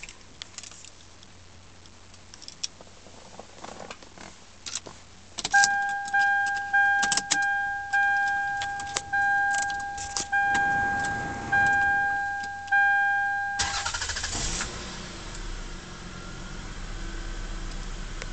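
Small clicks and key jangles, then a car's electronic warning chime sounding about nine times. A 2000 Lexus ES300's 3.0-litre V6 is then cranked, catches and settles into a steady run.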